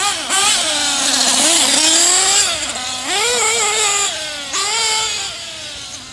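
Kyosho Inferno NEO ST 3.0 nitro RC truck's engine revving as it is driven, its pitch rising and falling again and again with the throttle. It grows fainter near the end.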